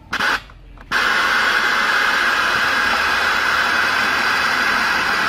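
Radio receiver hissing with loud static through its speaker. The static cuts in briefly, drops out, then comes back about a second in and holds steady.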